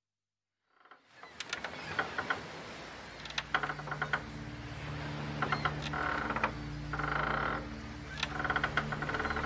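Creaking of a sailing ship's timbers and rigging, repeated short creaks fading in about a second in, with a low sustained music drone entering about three seconds in.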